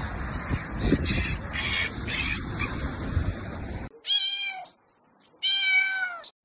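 Wind and surf noise with a few faint gull calls. After an abrupt cut, a domestic cat meows twice, two clear calls each just under a second long.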